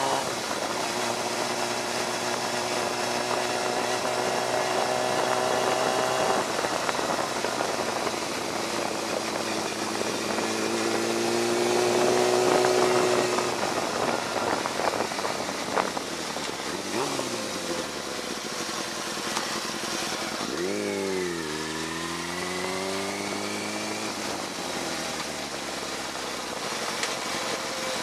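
Yamaha R6 sport bike's inline-four engine running under way, its pitch climbing and falling as the bike speeds up and slows, over a steady rush of wind and road noise.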